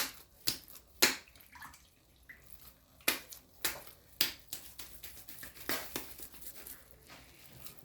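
A series of sharp, separate clicks and taps, about nine spread unevenly over several seconds, with faint handling noise between them.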